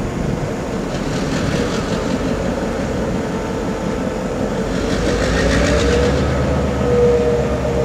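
Diesel locomotive engine running as the locomotive moves slowly with a string of freight gondolas; its low rumble grows louder about five seconds in.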